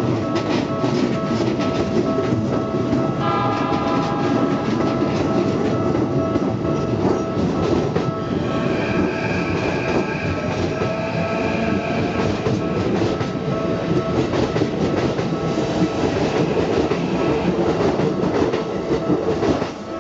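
Keikyu 1500-series electric commuter train running past over a level crossing, a steady rumble and clatter of wheels on rails with the crossing's warning bell ringing throughout. A horn sounds partway through, a warning to keep people from dashing across the crossing just before the train.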